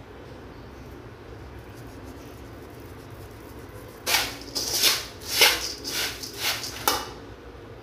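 A spoon stirring and tossing puffed rice in a large metal pan: a quick run of rustling, scraping swishes starting about four seconds in and lasting about three seconds, after a few seconds of low steady room hum.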